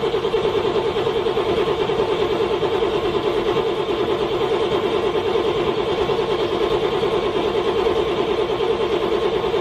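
Car engine being cranked by its starter in freezing cold, a steady rhythmic churning of even pulses that never catches and fires: a cold engine struggling to start.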